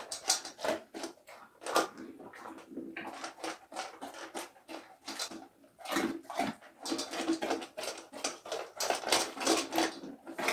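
Dog eating from a stainless steel bowl: irregular quick clicks, licks and scrapes of chewing and of food and tongue against the metal bowl.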